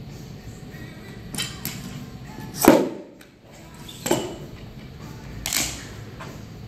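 Weight plates knocking and clanking against a metal barbell sleeve as they are handled on the bar: several separate knocks, the loudest nearly three seconds in.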